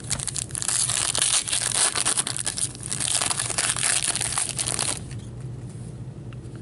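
Plastic wrapper of a pack of hockey cards being torn open and crumpled by hand, a dense crinkling and crackling that stops abruptly about five seconds in.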